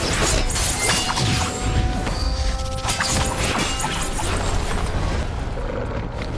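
Dramatic film score music with fight sound effects over it: repeated sharp clashes and crashes, fewer of them near the end.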